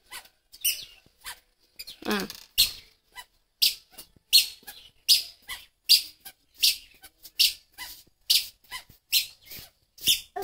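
A toddler's squeaky shoes chirping with each step, a short high squeak about every two-thirds of a second at walking pace.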